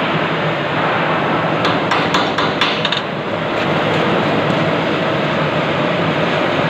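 CO2 gas-shielded wire-feed welding arc crackling steadily, with a brief cluster of sharper pops about two seconds in.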